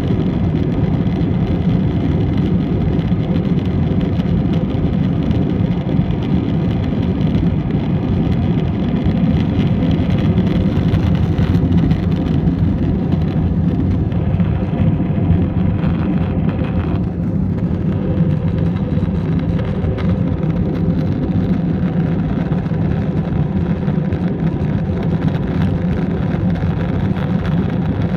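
Steady low drone of an airliner's jet engines and rushing air, heard from inside the passenger cabin during takeoff.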